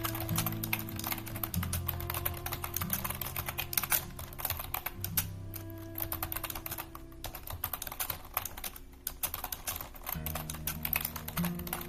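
Rapid computer-keyboard typing, a dense run of keystrokes with a couple of brief pauses, over soft instrumental background music.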